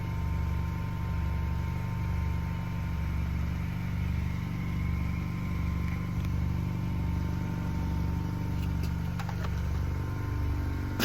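Car engine idling with a steady low hum that swells and dips about once a second, and a faint steady whine above it.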